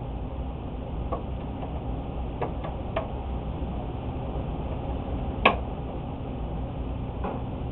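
A few light clicks and taps from small parts being handled, with one sharper click about five and a half seconds in, over a low steady hum.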